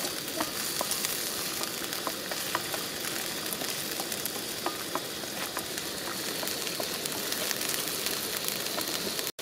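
Chopped onions sizzling as they fry in hot oil in a pan, with small pops and crackles throughout, while a wooden spatula stirs them.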